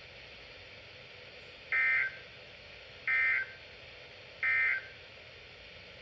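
NOAA Weather Radio SAME end-of-message data bursts through a Midland WR-300 weather radio's speaker: three short, identical warbling bursts of digital tones about a second and a half apart. They mark the end of the broadcast warning, heard over a low steady hiss.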